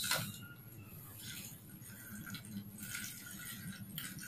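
Water poured from a plastic jug into the narrow neck of a plastic bottle, a faint uneven trickle and gurgle.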